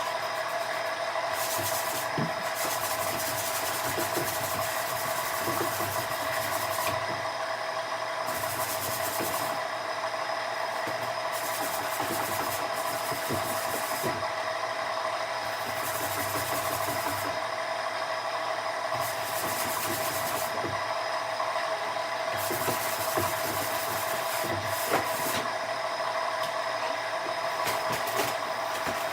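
220-grit sandpaper rubbing over cured body filler on a fiberglass front lip, in repeated sanding strokes that come and go every second or two. A steady hum runs underneath.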